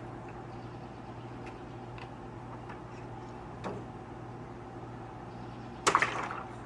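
Steady low hum with a few faint taps as a cat paws at water balloons piled in a metal bowl, then one sudden loud sharp sound about six seconds in that dies away within half a second.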